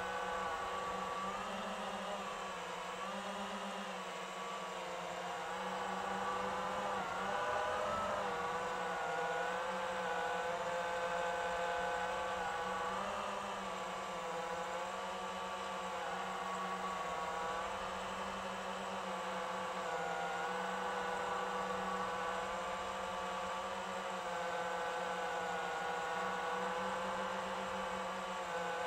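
FPV quadcopter's brushless motors and propellers whining steadily, heard close from the onboard camera, the pitch wavering up and down as the throttle changes.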